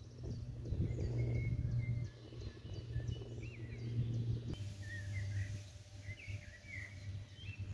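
Songbirds chirping and singing, more busily in the second half, over a steady low rumble.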